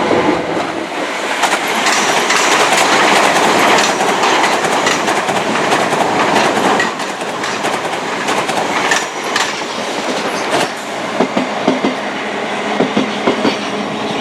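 Passenger train passing close below, with a heavy rush of running noise that eases after about seven seconds. It is followed by a quick run of rhythmic wheel clacks over the rail joints.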